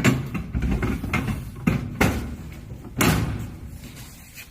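A metal goods tray being slid back into a vending machine cabinet. Its runners scrape, with several sharp knocks and clunks; the loudest come at the start, around two seconds in, and around three seconds in.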